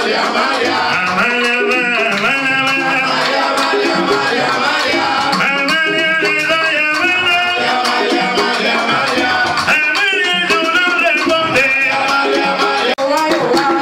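Live Cuban rumba: several singers singing together over drums and percussion, with a steady, unbroken rhythm.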